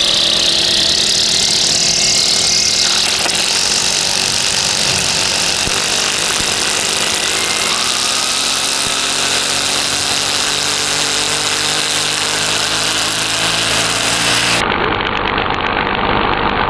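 Brush cutter running at speed with its spinning nylon-line head held against a rock, the line slapping the stone and wearing away fast. This is cheap Chinese trimmer line on test. The engine note creeps up in pitch in the second half, and the high hiss drops out abruptly near the end.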